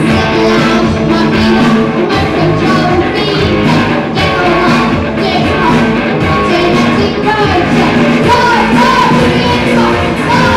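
Live rock band playing electric guitars and drum kit, with a lead singer's vocals over them.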